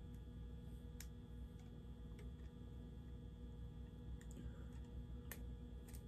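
Faint, sparse clicks and ticks of a small model diesel locomotive's truck and frame being worked by hand, about five in all, the sharpest a little past five seconds in, over a steady low hum.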